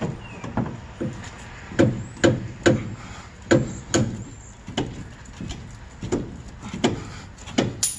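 Repeated sharp metal knocks, about a dozen at one or two a second, as a seized rear shock absorber on a Nissan D21 Hardbody pickup is pried and knocked at its mount to free it from the stud. The shock is stuck fast and won't come off.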